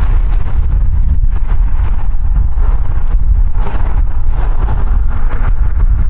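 Strong, gusty wind buffeting the microphone: a loud, continuous low rumble with a hiss above it that rises and falls with the gusts, swelling a little past halfway.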